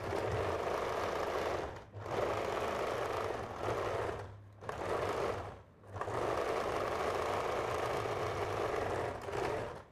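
Electric domestic sewing machine (an Allure) running as it stitches a seam through blouse fabric. It runs in four stretches with short stops between, as the sewer pauses to guide the cloth.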